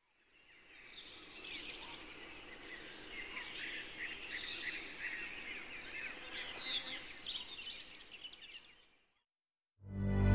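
A chorus of many birds chirping at dusk, with dense quick rising and falling calls, fading in and fading out again. After a short silence, background music starts loudly near the end.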